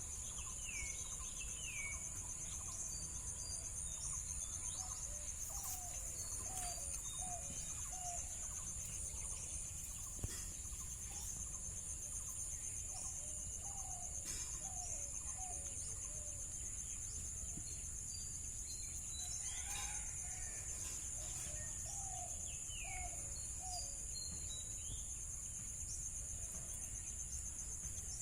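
Bird calls in runs of four or five short falling notes, repeated several times, over a steady high-pitched insect drone, with a few higher chirps in between.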